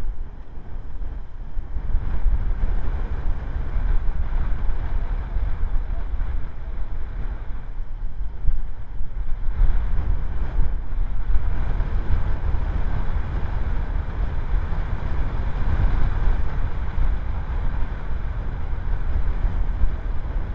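Gusty wind buffeting an outdoor camera microphone: a constant, flickering low rumble with a rushing hiss above it that grows stronger about halfway through.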